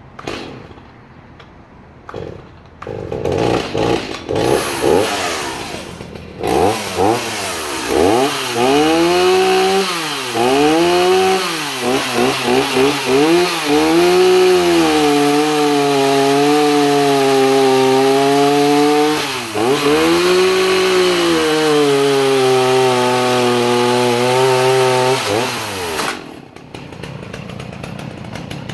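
Stihl MS 290 two-stroke chainsaw starting and revving in short bursts, then running at full throttle as it cuts hard, kiln-dried Douglas fir. The engine pitch sags each time the chain bites into the wood and recovers between cuts. Near the end it drops back to idle.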